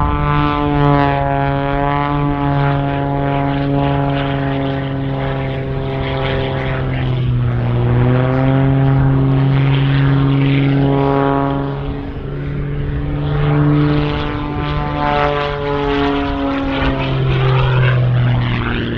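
Propeller and piston engine of an MXS-RH aerobatic monoplane running hard through aerobatic manoeuvres. Its steady drone slides lower and back higher several times as the aircraft pitches and turns.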